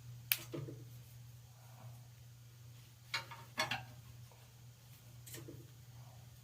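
A few light clicks and knocks from e-bike parts being handled during assembly: one about a third of a second in, a small cluster around three seconds in, and one more near the end, over a low steady hum.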